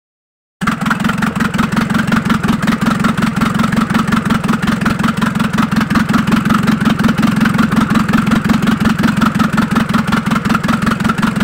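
Mitsubishi Pajero's 4M40 2.8-litre four-cylinder turbodiesel idling steadily, with a rapid, even diesel knock. It cuts in suddenly about half a second in, after a brief silence.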